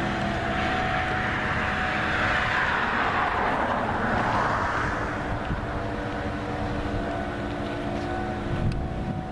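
A vehicle passing by: road noise swells over the first few seconds, its pitch falling, then fades, over a steady background hum.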